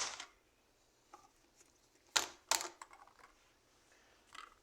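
Plastic clicks and pops from bendy segmented LED caterpillar fidget toys being bent and moved around. A sharp click at the start, two more in quick succession a little past two seconds in, and a fainter one near the end.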